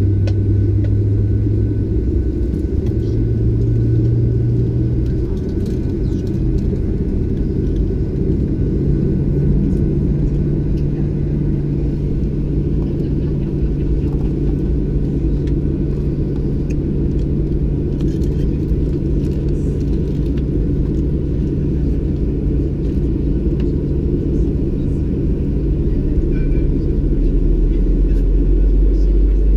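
Boeing 737-800's CFM56-7B jet engines heard from inside the cabin during engine start: a steady low rumble, with a low hum that steps up in pitch over the first several seconds as an engine spools up. The rumble grows a little stronger near the end.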